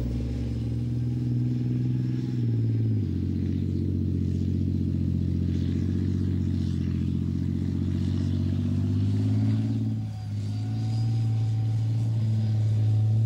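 Challenger 1 tank's Rolls-Royce CV12 turbocharged diesel engine running as the tank drives into position. The engine note drops about three seconds in, sags briefly near ten seconds, then picks up again.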